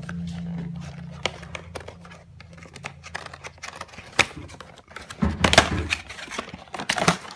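A Shimano XT cassette's cardboard box and paper wrapping handled and opened by hand: irregular crinkling, rustling and tapping clicks, busiest and loudest about five and a half seconds in.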